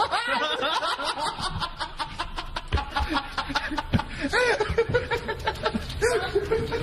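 A person laughing in quick runs of short, breathy snickers, with rising and falling pitch.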